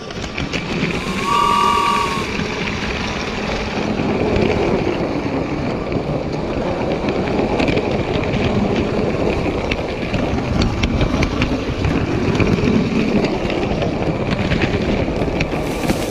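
Toy Lego train running on plastic Lego track, heard from on board: a steady rushing rumble of its wheels and electric motor, with a faint steady whine and irregular clicks as it rolls over the track joints. A brief high tone sounds about a second in.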